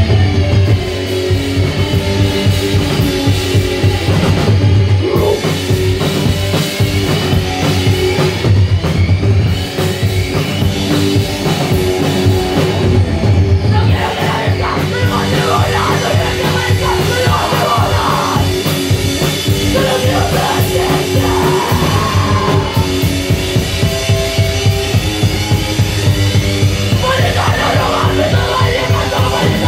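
Live rock band playing loud: electric guitar and a fast-driving drum kit, with a singer's vocals coming in about halfway through.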